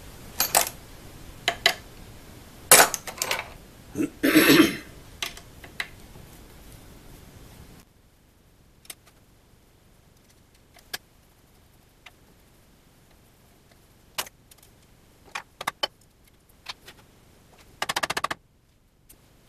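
Metal hand tools clinking and rattling on a workbench while a part is unbolted with a T-handle hex key: scattered sharp clicks, busiest in the first few seconds, and a short fast rattle near the end.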